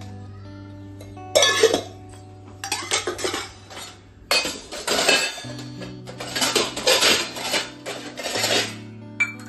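Steel kitchen utensils clattering and clinking against each other and the counter in several short bursts, over steady background music.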